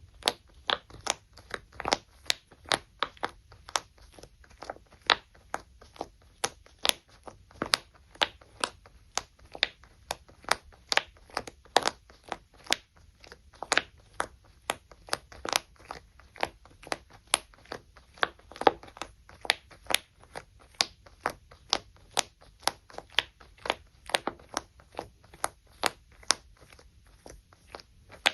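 Feet stepping on something soft and squishy, each press giving a short, sharp pop, about two or three a second at an uneven pace.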